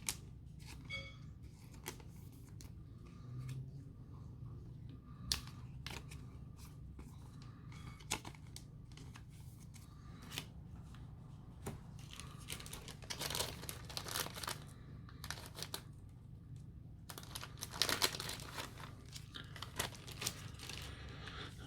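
Faint crinkling and rustling of Pokémon trading cards and their foil or plastic packaging being handled, with scattered light clicks and taps. It gets busier in the second half.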